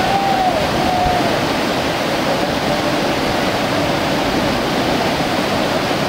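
Whitewater rapids of a mountain river rushing steadily, an even, loud wash of water noise.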